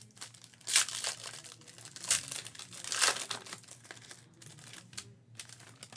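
A foil trading card pack being torn open and pulled apart by hand, the wrapper crinkling in a run of bursts, the loudest about a second apart early on and smaller ones near the end.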